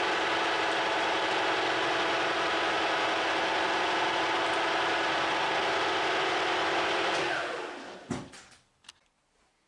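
Metalworking machine tool, a lathe or milling machine, running steadily under its motor. It is switched off about seven seconds in and winds down, followed by a single knock and a couple of light clicks.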